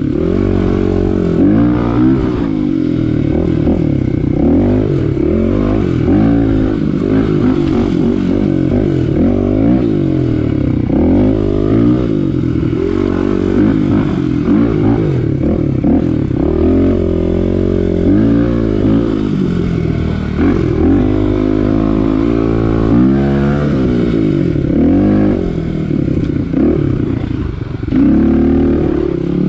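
Kawasaki KLX 250 dual-sport motorcycle's single-cylinder four-stroke engine under way on a ride. The revs rise and fall again and again as the rider throttles and shifts. Near the end they drop briefly, then climb again.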